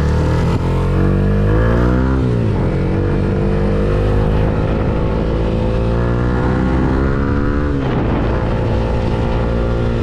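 Yamaha Sniper 150's single-cylinder four-stroke engine accelerating on the road, shifting up through the gears. The engine note climbs, drops sharply at an upshift about two seconds in, climbs slowly again, drops at a second upshift near the end, then holds steady.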